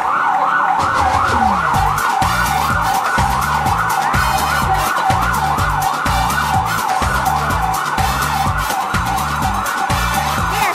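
A fast yelp siren sweeping up and down about four times a second, laid over an electronic beat with a pulsing bass line.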